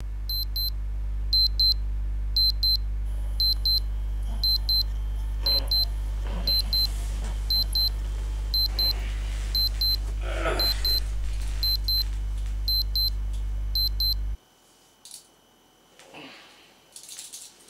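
Digital alarm clock beeping in quick groups of short high beeps about once a second, over a steady low hum. The beeping and hum stop abruptly about fourteen seconds in, and faint rustling of bedding follows as the sleeper stirs.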